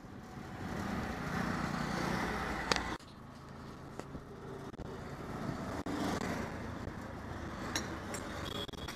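Auto-rickshaw's small engine running with road and wind noise heard from inside the open cab, and other traffic going by. There is a sharp click a little under three seconds in and the noise drops suddenly at about three seconds, with a few more clicks near the end.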